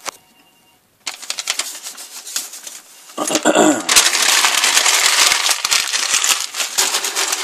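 Sheet of white packing paper being pulled off a wooden table and crumpled: a dense crackling rustle that starts about a second in and is loudest in the second half.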